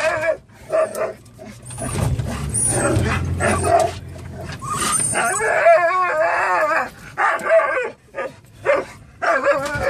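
Excited dogs whining and howling, high wavering cries that rise and fall in pitch, broken by short pauses and a few yips; the noise of dogs worked up with excitement.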